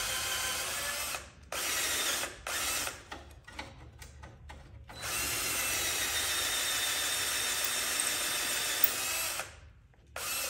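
Cordless drill boring the broken exhaust-stud hole in a VW 1600 dual-port engine's cylinder head out to tap-drill size for an 8 mm × 1.25 thread. It whines steadily for about a second, gives two short bursts and a few stop-start pulses, then makes a long steady run of about four seconds, and one brief burst near the end.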